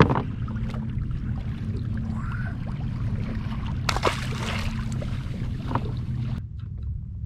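Open-water ambience around a fishing kayak: a steady low rumble of wind and water on the hull. There is a sharp knock at the start and a short rush of noise about four seconds in, and the higher hiss drops away a little after six seconds.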